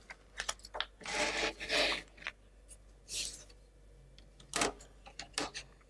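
Wooden model-kit parts and plywood boards being handled on a table: light clicks and taps, two longer rubbing scrapes, and a sharper knock about two-thirds of the way through.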